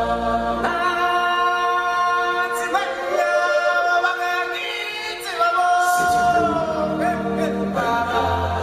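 A choir of stage-show vocalists singing long held notes in harmony, largely a cappella. The voices rise in pitch a few seconds in, and the low drone underneath drops out between about one and six seconds in.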